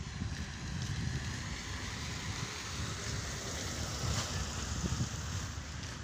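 Wind buffeting a phone's microphone, a rough low rumble, over a steady outdoor hiss that swells a little about four seconds in.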